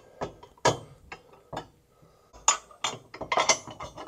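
Metal clicks and clinks from steel gooseneck hitch bracket and bolt hardware being fitted under a pickup. The clicks come singly at first, then in a quick run about three seconds in.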